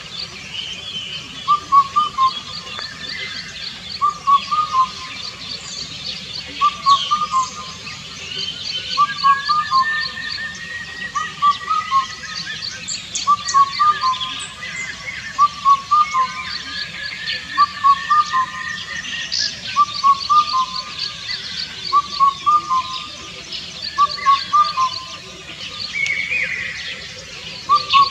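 Indian cuckoo singing its four-note phrase over and over, about one phrase every two seconds. Other birds chirp higher in the background.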